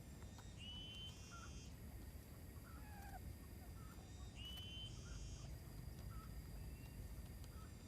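Quail lure call: a short, level high note followed at once by a higher note, repeating at even intervals of about four seconds. Faint chirps of other small birds sound in between.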